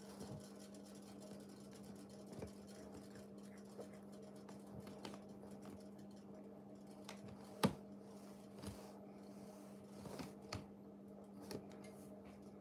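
Faint scattered clicks and plastic crinkles as a cat lying in a plastic bag bites and paws a plastic comb, with one sharper click a little past halfway. A steady low hum runs underneath.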